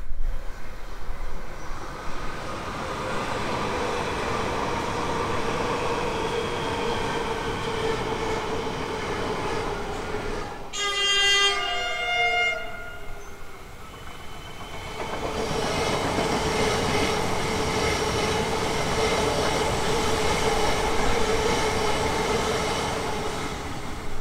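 Melbourne suburban electric trains running on the line, a steady hum and rail noise with a held electric whine. About halfway through a train horn sounds for about two seconds, then another train runs by with the same steady whine.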